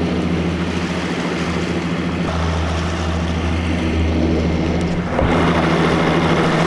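Bass boat outboard motor idling steadily at low speed. About five seconds in, a rush of water and wind grows louder over the engine.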